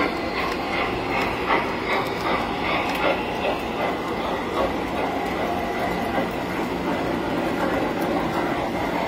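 Tinplate model trains running on metal track: a steady rumble with light clicking from wheels over the rail joints.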